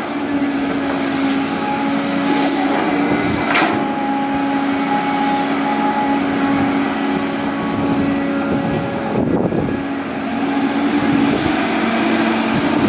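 Caterpillar excavator's diesel engine running steadily with a constant hum as it scoops sand, with two short knocks, about three and a half seconds in and again about nine seconds in.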